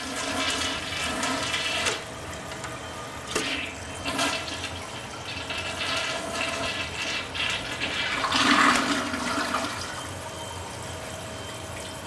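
A 2001 Mansfield Alto tank toilet flushing through its flush-tower valve: water rushes into the bowl, loudest about eight seconds in, then settles to a quieter, steady rush near the end.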